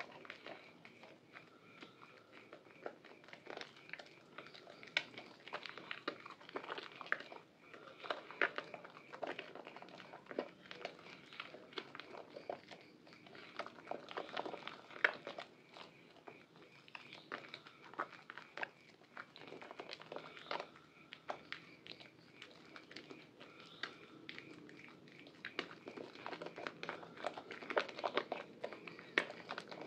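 Hands squeezing and kneading a soaked, soft bar of Purbasari Red antibacterial soap in thick lather: wet squelching with many small, irregular clicks and crackles of foam.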